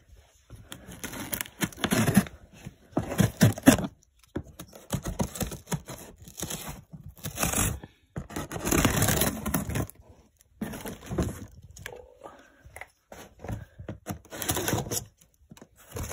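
Knife cutting and tearing through packing tape and cardboard on a shipping box, in a series of short scraping strokes with brief pauses between.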